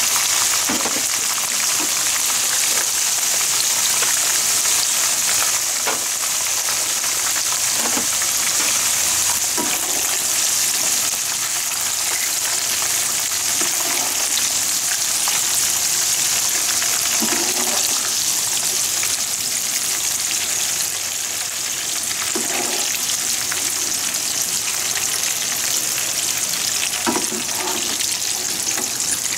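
Potato strips deep-frying in hot oil: a steady sizzle, with now and then a light scrape of a wire mesh skimmer stirring them in the pan.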